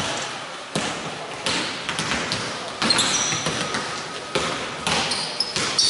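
Several basketballs being dribbled on a hardwood court, irregular sharp bounces about once or twice a second, with a few short high sneaker squeaks.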